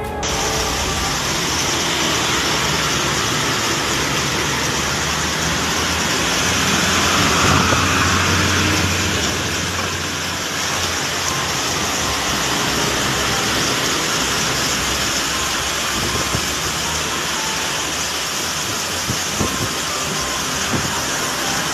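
Storm wind and heavy rain: a loud, steady rushing hiss that swells for a few seconds about seven seconds in.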